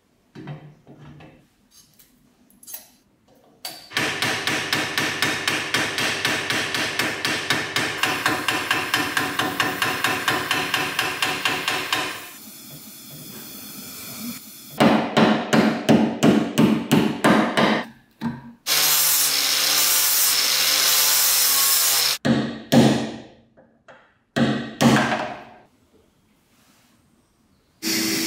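Small hammer tapping rapidly on a metal part, a long even run of about six blows a second, then shorter runs of blows. Between the runs comes a few seconds of steady hissing noise.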